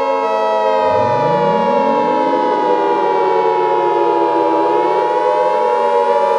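Civil defense siren winding up: its pitch rises from low over about three seconds, starting about a second in, then holds. Other wavering siren tones and a steady high alert tone sound underneath.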